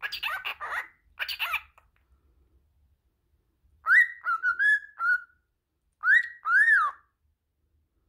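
A cockatiel vocalising: two short bursts of scratchy chatter, then a run of clear whistled notes about four seconds in, and two rising-and-falling whistles near the end.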